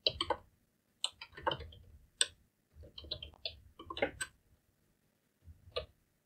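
Computer keyboard typing: several quick runs of key clicks, then a brief last couple of keystrokes near the end.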